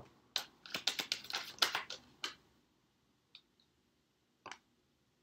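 A Rider-Waite tarot deck being shuffled by hand: a rapid run of card clicks for about two seconds, then a few single clicks as the deck is split and handled.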